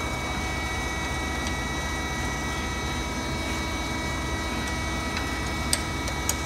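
Steady mechanical hum with several steady tones, from the soap stamping machine and workshop, while the steel mold base is being fixed in place. Near the end, two sharp metallic clicks of tools or parts against the steel mold.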